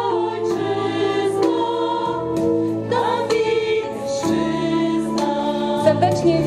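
Women's folk choir singing in harmony, holding long sustained notes.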